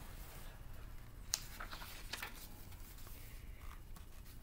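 Faint paper rustling and handling noise from a book's pages being turned, with one sharp click about a second in.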